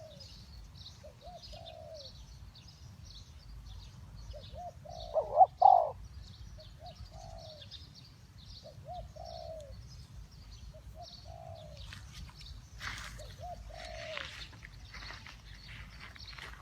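Spotted doves cooing in short repeated phrases, one much louder and closer about five seconds in, over a steady high-pitched chirping.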